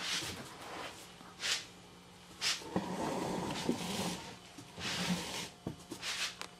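A stuffed fabric chair cushion being handled and shifted about: several short rustles of the cloth cover, with a longer stretch of shuffling in the middle.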